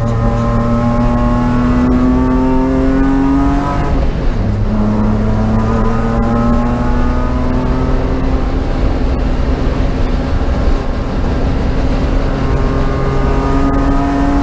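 BMW race car's engine at full throttle, its pitch climbing, then dropping sharply on an upshift about four seconds in before climbing slowly again through a long pull in the next gear.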